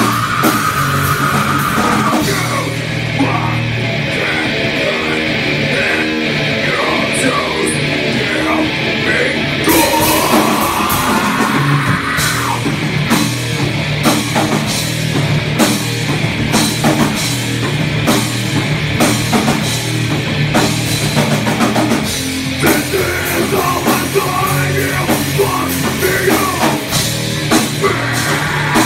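Rock band playing live in a small club: drum kit, electric guitar and vocals played loudly together. The cymbals drop back about three seconds in and crash back in about ten seconds in.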